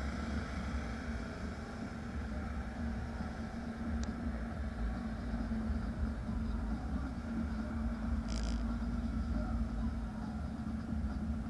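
Car driving slowly, a steady low engine and road rumble heard from inside the car. A short click comes about four seconds in, and a brief hiss a little after eight seconds.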